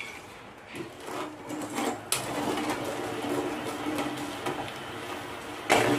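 Metal ladle stirring sugar and water in a pan to make sugar syrup, scraping steadily against the pan's bottom, with a few light knocks early on and a sharper click about two seconds in.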